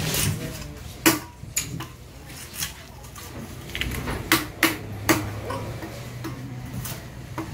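Large fish-cutting knife knocking and tapping against the fish and the wooden chopping block: a handful of sharp, uneven knocks, the loudest about a second in and three close together around four to five seconds in, over a low steady hum.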